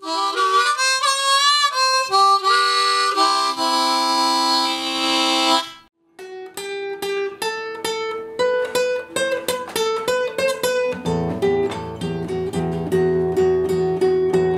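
Blues harmonica played with bent, wavering notes and then a held chord, breaking off about six seconds in. After a brief silence, a nylon-string classical guitar is plucked note by note, with lower bass notes joining about eleven seconds in.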